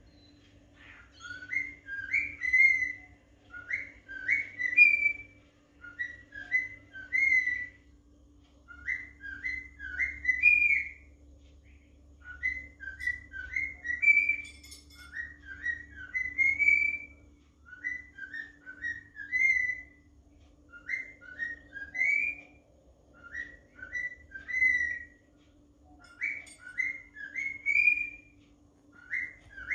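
Cockatiel whistling a short tune over and over: quick phrases of rising whistled notes, one phrase every two to three seconds.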